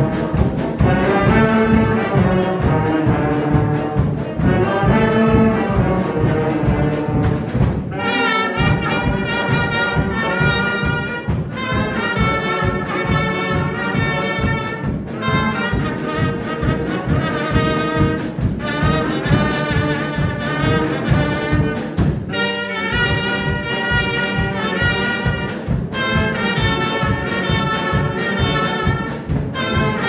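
Brass band with saxophones, clarinets, tubas and drum kit playing a tune over a steady drum beat, with a trumpet taking the lead. The bass and drums drop out briefly about eight seconds in and again about twenty-two seconds in.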